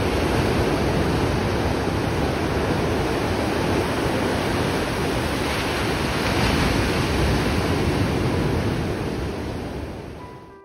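Ocean waves breaking and washing up a sandy beach in a steady rush of surf, fading out over the last second.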